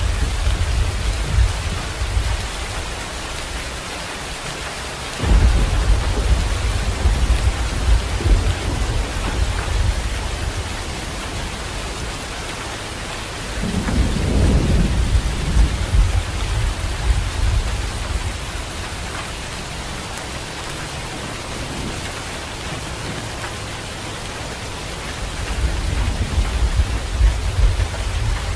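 Steady rain hissing throughout a thunderstorm, with long low rolls of thunder coming and going: one fading at the start, one breaking in suddenly about five seconds in, the strongest about halfway through, and another building near the end.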